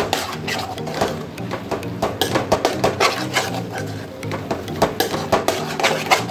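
Spatula scraping and stirring scrambled egg bhurji around a nonstick pan in a quick, uneven run of scrapes and clicks, over background music.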